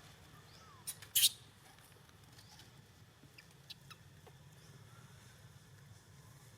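A baby monkey's short, high squeaks: two close together about a second in, then a few fainter ones, over a low steady hum.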